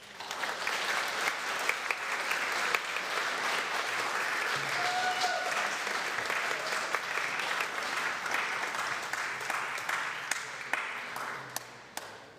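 A church congregation and choir applauding: a dense patter of many hands clapping that starts at once and dies away near the end.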